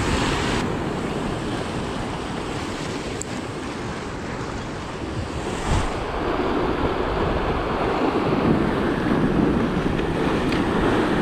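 Sea waves breaking and washing over coastal rocks, with wind noise on the microphone.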